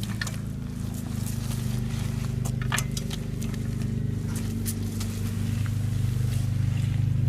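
A low, steady motor hum with scattered sharp clicks and knocks over it.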